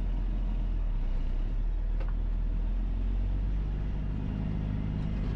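Diesel engine of a tri-axle dump truck pulling a loaded pup trailer, running steadily as it drives along a dirt road, with a deep steady hum; the engine tone becomes clearer about three and a half seconds in.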